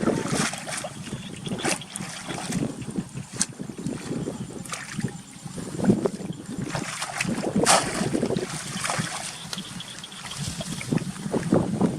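Water splashing and sloshing in short, irregular bursts, loudest about six and eight seconds in.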